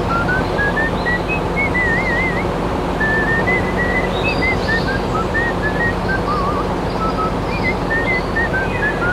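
Background music: a high whistle-like melody of short, sliding and warbling notes over a dense, steady backing.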